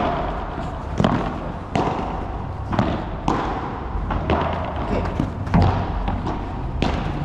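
Padel rally: a ball is struck back and forth by rackets and bounces on the court, giving about nine sharp knocks at uneven intervals.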